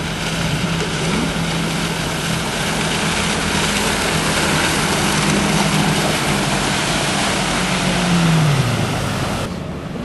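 Motorboat engine running with a steady hum that falls in pitch about eight seconds in, over a loud rushing noise of wind and water spray. The rushing drops away suddenly near the end.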